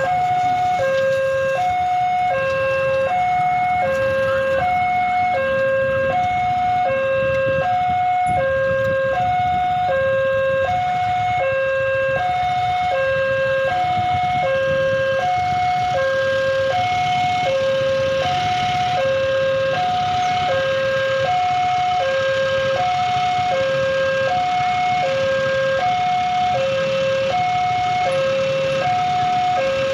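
Railroad crossing warning alarm sounding a steady two-tone signal, switching back and forth between a low and a higher tone about every three-quarters of a second while the barriers are down for an approaching train. Motorcycle engines idle underneath.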